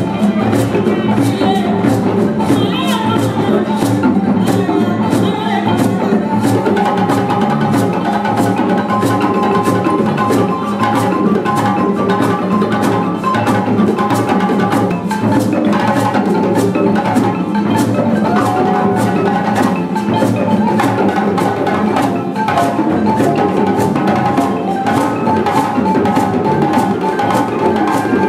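Live West African band music: balafons (gourd-resonated wooden xylophones) and djembe hand drums playing a steady, driving rhythm over bass guitar.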